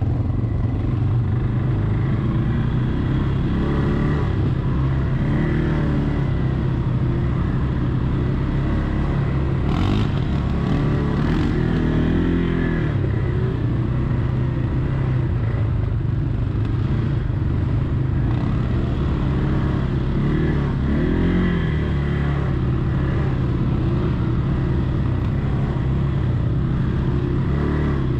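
Quad bike (ATV) engine running as it rides along a dirt track, its pitch rising and falling a few times with the throttle. A couple of short knocks come about ten seconds in.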